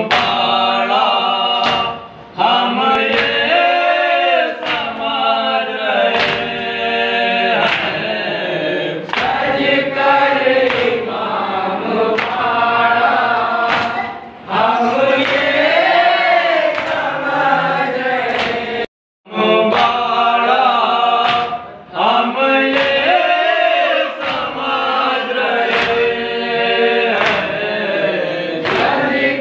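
Men's voices chanting a nauha, a Shia lament, together without instruments. Sharp slaps about every second and a half keep time with the chant: hands beating on chests in matam. The sound drops out for a moment about two-thirds of the way through.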